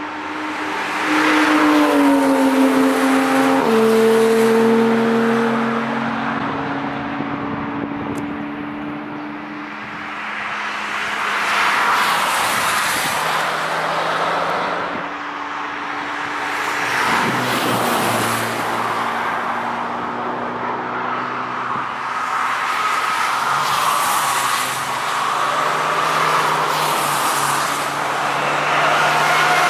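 Several cars passing one after another at track speed through a bend, each engine growing louder and fading away, with engine notes changing pitch through gear changes. A Porsche 911 and a Nissan GT-R pass first, a VW Scirocco about halfway, and a BMW E46 near the end.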